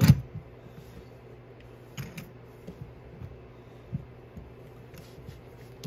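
Light clicks and knocks of a metal sight pusher and pistol slide being handled and repositioned, a sharper knock right at the start, over a steady low hum.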